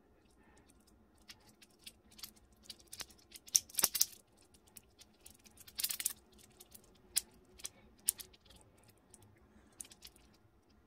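Magnetically modified infinity cube fidget toy being folded and flipped by hand: a run of irregular sharp clicks and clacks as its blocks fold open and snap back together, loudest in short clusters about four seconds in and again around six seconds.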